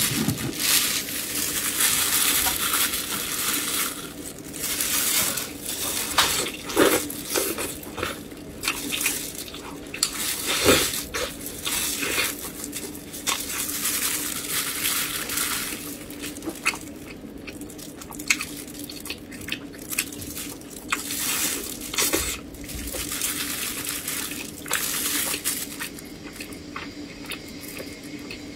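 Close-miked wet chewing and lip smacking of soft braised pork belly: irregular squelchy mouth sounds, over a steady low hum.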